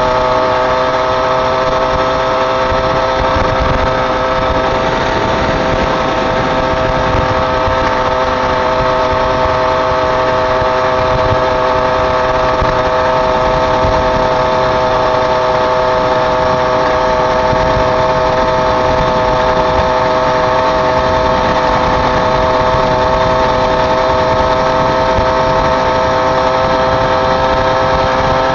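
A small engine running at a constant speed, giving a steady whine made of several tones that hold their pitch throughout, over an uneven low rumble.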